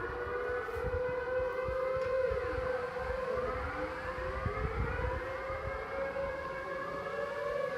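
Dutch civil-defence air raid siren sounding its monthly test signal: a steady held tone with rising and falling wails crossing over it.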